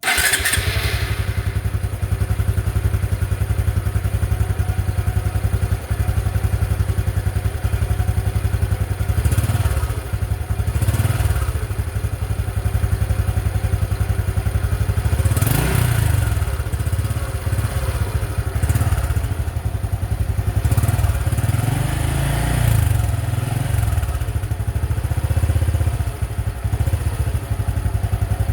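Honda XRM 125's single-cylinder four-stroke engine running through its stock exhaust at a steady idle, with the throttle blipped several times into short revs.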